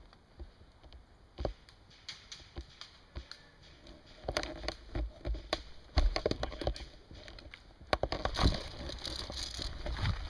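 Scattered knocks and clicks at uneven spacing with rustling between them, busier in the second half, the loudest knocks about six and eight seconds in.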